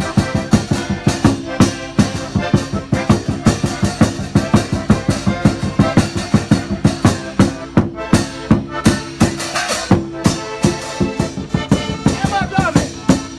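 Live folk music with a steady, quick drum beat, several beats a second, under a sustained melody.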